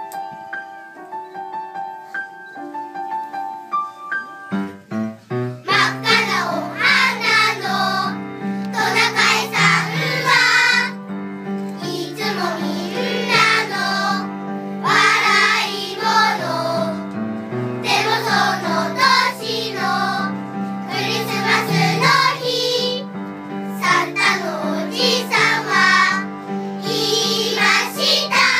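A short instrumental introduction of held notes, then a choir of young children singing together over the accompaniment from about five seconds in.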